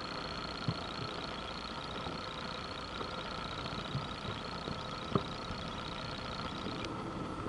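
Steady mechanical drone of heavy machinery, with a few soft thumps.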